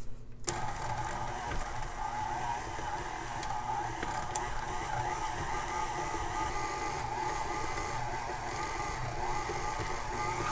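KitchenAid stand mixer switched on about half a second in, its motor running with a steady hum as the flat beater creams butter and sugars.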